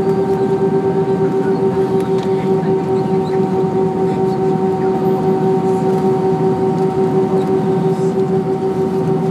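Cabin noise inside an Airbus A320 taxiing on idling jet engines: a steady hum with one constant mid-pitched tone over a low rumble, wavering slightly in loudness.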